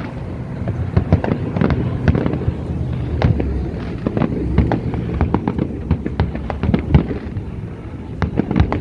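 Fireworks going off: a rapid, irregular string of sharp bangs and pops over a steady low rumble.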